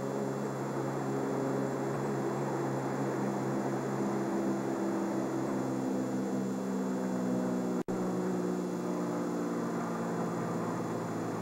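An engine drones steadily, its pitch rising slightly in the middle. There is a brief dropout about eight seconds in.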